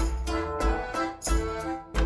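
Music with bowed strings and a strong bass beat about every two-thirds of a second, played as a listening test through a homemade 10-litre bass reflex speaker box tuned to 56 Hz.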